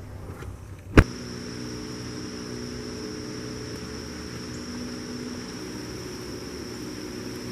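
A single sharp click about a second in, then a steady, high-pitched insect buzz over a low steady hum and faint outdoor noise.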